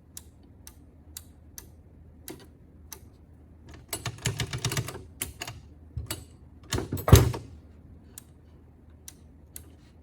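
Scattered clicks and clacks from handling an Ilco 017 key duplicator that will not start: a quick run of clicks about four seconds in and a louder clunk about seven seconds in, with no motor running.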